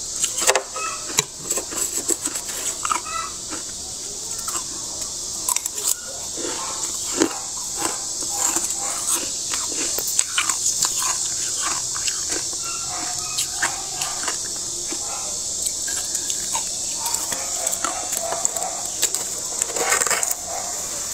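Thick freezer frost being scraped and broken loose with a hand tool: repeated crunching and scratching with occasional squeaky scrapes, over a steady hiss.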